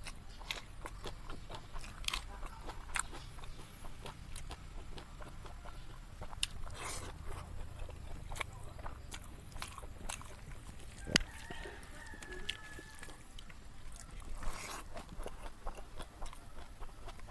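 Close-up eating sounds: chewing, crunching and wet mouth clicks as rice and small fried river fish are eaten by hand. Chickens cluck in the background.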